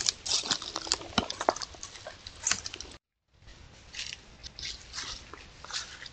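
Footsteps crunching and rustling through dry leaves and brush, in irregular steps, breaking off for a moment about three seconds in and then going on.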